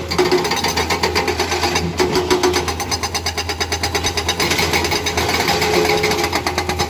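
Hydraulic breaker on a Komatsu excavator hammering with rapid, even blows, over the steady running of the excavator's diesel engine.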